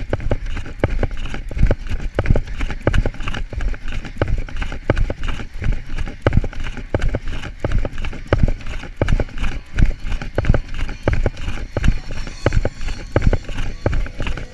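Rhythmic thumping of a fast run, about three beats a second: the runner's footfalls and the jolting of the handheld camera in the swinging hand.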